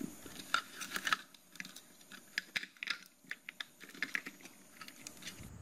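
Irregular light clicks, taps and rattles of small circuit boards and wires being handled and pressed into a plastic electrical enclosure.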